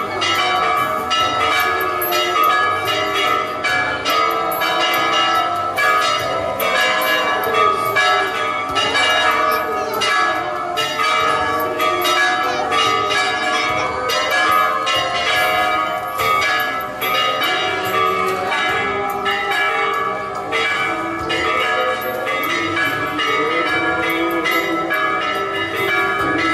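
Church bells ringing continuously: many quick, overlapping strokes whose tones hang on and blend into a steady peal.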